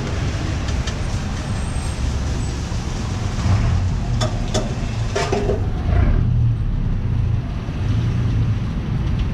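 Steady street traffic rumble from passing vehicles, with a few short clicks near the middle.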